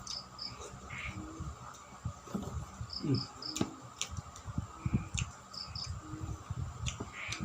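Close-up chewing and mouth sounds of someone eating rice with ripe mango, irregular soft smacks and knocks, over a steady chirring of crickets with short chirps in twos and threes.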